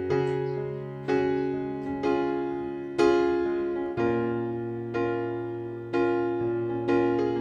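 Background music: a slow electric piano playing chords, a new chord struck about once a second and fading.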